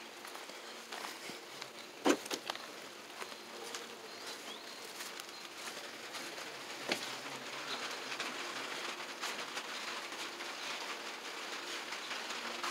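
Light rain falling, a steady soft hiss, with scattered knocks and taps from walking and handling the phone, the loudest about two seconds in.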